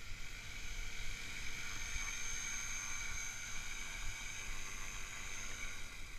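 Gaui X3 electric RC helicopter hovering low, with the steady high-pitched whine of its motor and spinning rotors. The whine strengthens about two seconds in. Wind rumbles on the microphone underneath.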